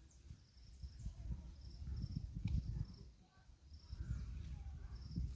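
Faint outdoor ambience: short high chirps from a small creature repeat every half second to a second or so, over irregular low rumbling noise.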